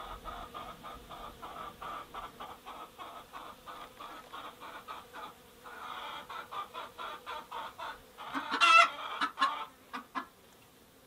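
Hen clucking in a rapid, steady run of short clucks, which pauses briefly about five seconds in and then resumes. About eight and a half seconds in comes a louder squawk, followed by a few last clucks.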